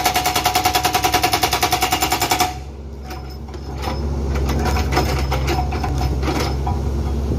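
Hydraulic breaker on a Bobcat E45 mini excavator hammering rock in rapid, evenly spaced blows, about nine a second, stopping about two and a half seconds in. After that the excavator's diesel engine runs on and picks up a little, with scattered light knocks.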